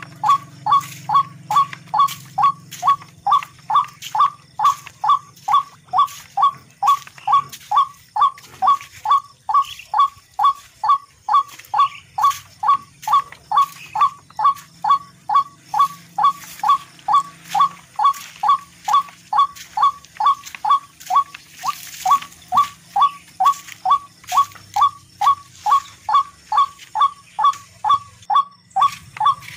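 A bird-like call: one short down-slurred note repeated at a steady, unvarying pace of about two and a half notes a second, loud throughout.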